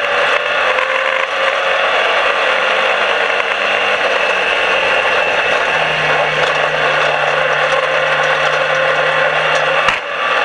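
Dirt-track race car's engine running hard at steady revs, heard from inside the cockpit over loud road and body rattle noise; the engine note drops a little about halfway through. A sharp knock comes near the end.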